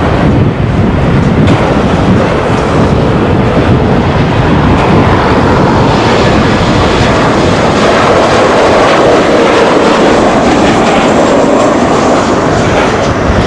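Jet engines of a Boeing 737-900ER, CFM56-7B turbofans, running loud and steady as the airliner passes close on final approach and flares over the runway.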